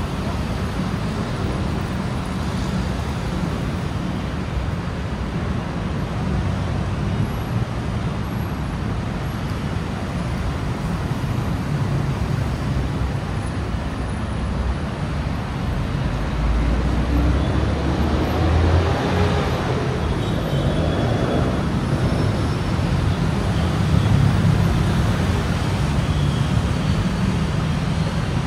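Steady city road traffic: engines and tyre noise. A louder low engine rumble swells about two-thirds of the way through, with a faint rising-then-falling engine tone.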